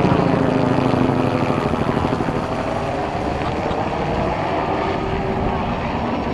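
Helicopter flying low overhead, its main rotor and engine running steadily and slowly growing a little quieter as it banks away.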